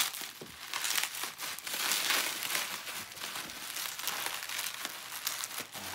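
Plastic bubble wrap crinkling and rustling as hands pull and unwrap it from a guitar neck, a continuous run of fine crackles.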